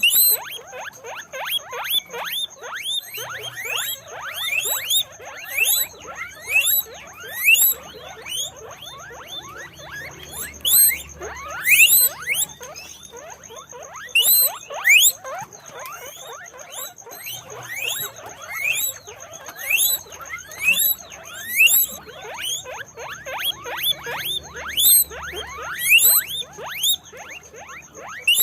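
Guinea pigs squeaking (wheeking): many short calls, each rising sharply in pitch, coming one after another and overlapping, with louder squeals every second or two.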